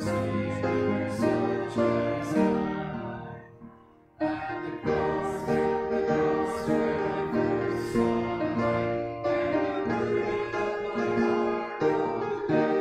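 A hymn sung to piano accompaniment, with a brief break between phrases about four seconds in.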